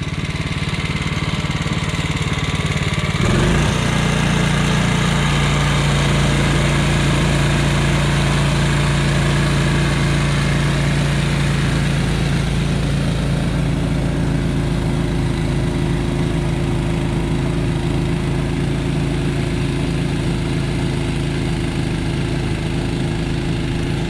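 Honda HSS928 tracked two-stage snowblower's single-cylinder engine running steadily while the machine clears wet, slushy snow. Its note changes about three seconds in, then holds steady.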